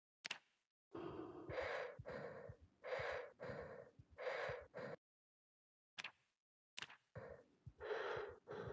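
Heavy, steady breathing through a gas mask: a loud breath about every second and a half, with quieter breaths between. It is broken by a few seconds of dead silence about five seconds in, then starts again after a couple of sharp clicks.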